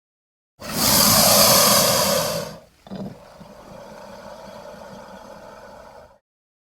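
Dimetrodon sound effect: a loud, harsh creature call lasting about two seconds, followed by a quieter, longer low growl that cuts off suddenly.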